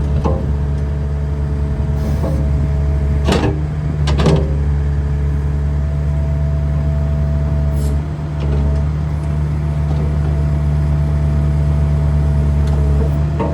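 Bobcat E85 excavator's diesel engine running steadily with a steady whine over the drone, broken by a few sharp knocks.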